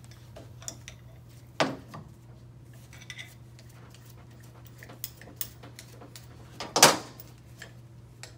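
Steel tools and bearing-puller parts clinking and knocking together as a puller is set up on a CVT pulley, with scattered light clicks and two louder metallic clanks, one about a second and a half in and a louder one near seven seconds. A faint steady hum runs underneath.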